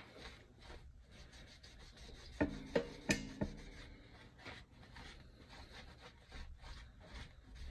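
A cloth dampened with alcohol rubbing and wiping across a pinball playfield's wood and inserts, in short scratchy strokes. A quick run of four sharp knocks with a brief ring comes about two and a half seconds in.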